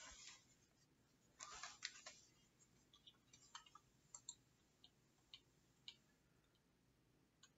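Near silence: room tone with two brief faint rustles in the first couple of seconds, then scattered faint small clicks.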